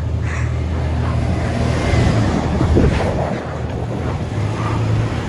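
Pickup truck engine running steadily under a broad rushing noise of wind on the microphone and tyres in snow.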